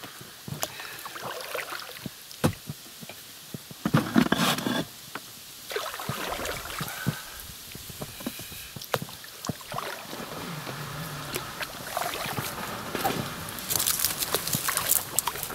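Rowing an inflatable boat with oars: irregular splashes of the oar blades in the water, with scattered light knocks of the oars against the boat.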